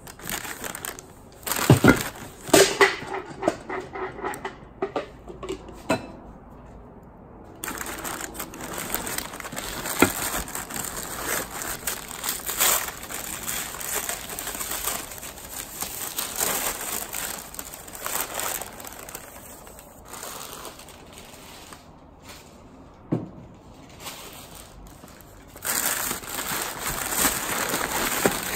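Brown kraft packing paper crumpling and rustling as hands dig through and unwrap items in a cardboard box, with a few sharp knocks of objects being handled.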